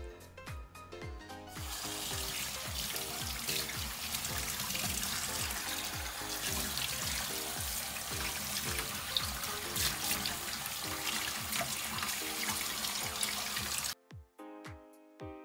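Kitchen tap running onto a fish being rinsed in a stainless steel sink: an even rush of water that starts about a second and a half in and cuts off suddenly near the end. Background music with a steady beat plays throughout.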